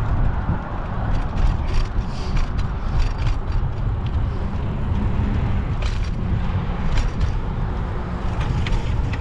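Steady low rumble of road and traffic noise heard from a moving bicycle, with scattered sharp clicks and rattles.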